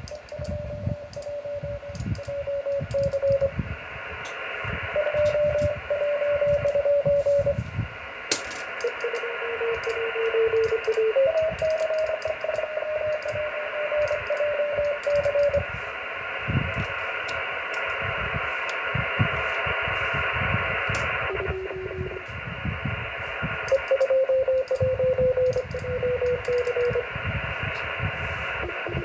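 Morse code (CW) from an amateur radio receiver on the RS-44 satellite's downlink: a single beeping tone of about 500–650 Hz over steady receiver hiss. The tone slides slowly down in pitch, the Doppler shift of a passing low-orbit satellite, and jumps to a new pitch several times.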